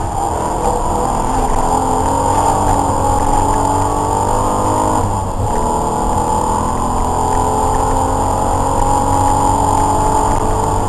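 Race car engine under load, heard from inside the stripped cabin: the engine note climbs steadily, dips briefly about halfway through, then climbs again.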